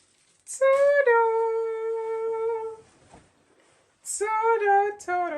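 A woman humming: one long, steady held note starting about half a second in and lasting about two seconds, then after a short pause a wavering, gliding hum.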